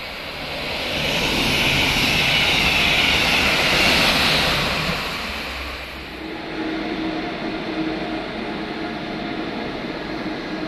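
A train passing at speed: a rushing noise swells over the first two seconds, peaks about four seconds in and fades away by about six seconds. A quieter, steady hum follows.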